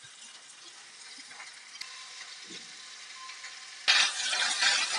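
Konda pindi (Aerva lanata) leaves frying in a little oil in a steel kadai: a faint sizzle, then about four seconds in, a sudden loud sizzle as the leaves are tossed with two spoons.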